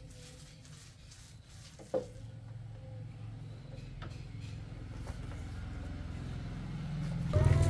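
Low engine rumble of a motor vehicle, growing steadily louder, with one sharp knock about two seconds in. A voice comes in loudly near the end.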